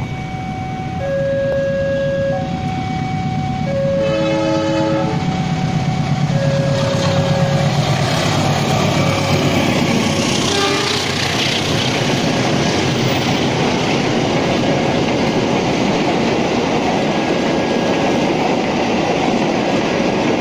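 Diesel passenger train's horn sounding in alternating low and high notes for about the first seven seconds as the Serayu approaches, then the train passing close by with a loud continuous rumble and clatter of wheels and coaches.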